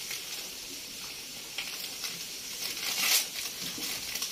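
Plastic biscuit wrapper crinkling and tearing as it is opened, with the loudest crackle about three seconds in, over a steady hiss of rain.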